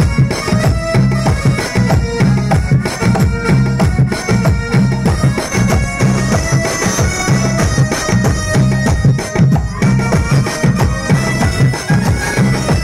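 Amplified instrumental Indian folk music: a dholak drum beats a steady, fast rhythm under a sustained, reedy melody played on electronic keyboards.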